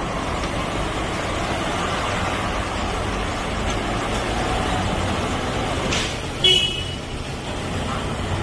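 Diesel running steadily from a dispenser nozzle into a measuring can, with the fuel pump running, during a check of how accurately the dispenser meters fuel. About six and a half seconds in there is a short high tone.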